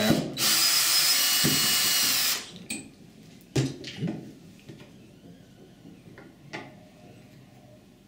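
Power drill-driver running for about two seconds, backing screws out of a uPVC door hinge's metal mounting plate. It is followed by a few light knocks as the hinge is handled and lifted off.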